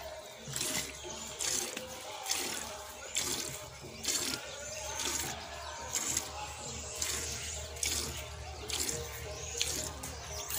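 Water buffalo milked by hand: milk squirting into a steel bucket already partly full of milk, in regular hissing jets roughly one a second.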